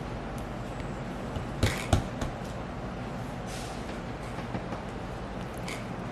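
Homemade slime worked by hand, giving two sharp crunching pops a little under two seconds in and a few fainter crackles later, over a steady background hum.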